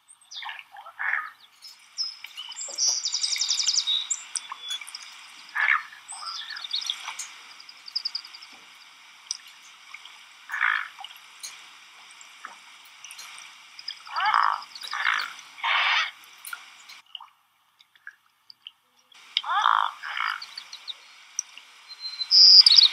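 Swans calling with short nasal grunts, sometimes one at a time and sometimes in quick runs of two or three, with thin high peeping above them. The calls stop for about two seconds roughly two-thirds of the way through.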